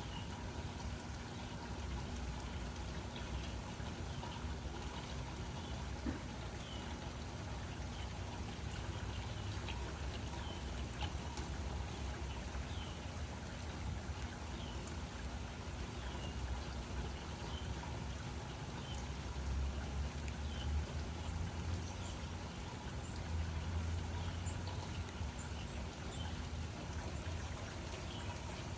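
Steady rainfall, a continuous even patter with scattered nearer drops. A low rumble of distant thunder swells twice in the second half.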